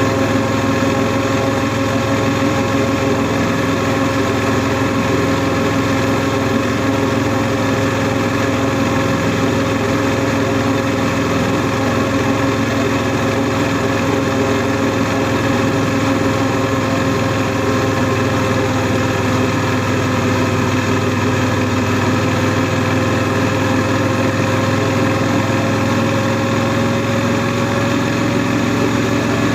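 Honda NC700S motorcycle's 670 cc parallel-twin engine running at a steady cruise under the rider, its note sagging slightly and then rising again near the end.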